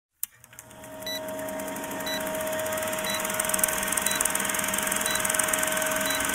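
Old film-projector sound effect for a countdown leader: a steady whirring rattle over a hum, with a short high beep about once a second. It starts suddenly and swells over the first second or two.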